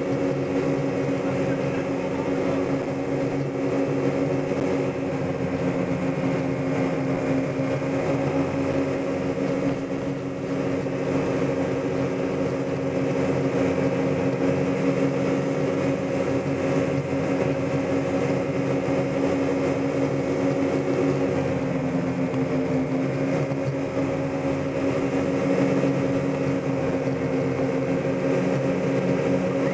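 Motorboat engine running steadily at towing speed, holding an even pitch, with water rushing in the wake.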